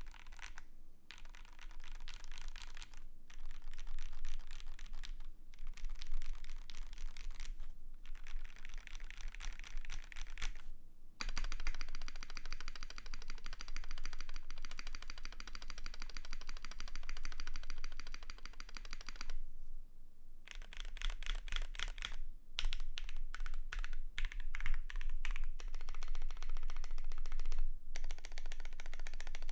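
Fast typing on a KBD8X mk2 custom mechanical keyboard with lubed Gateron Pro Yellow linear switches on a polycarbonate plate and PBT keycaps: dense runs of keystrokes lasting a few seconds each, broken by short pauses.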